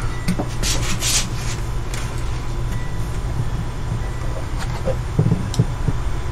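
Steady low hum, with a brief rustling noise about a second in and a few faint taps, most likely from the borescope rod being handled in the barrel.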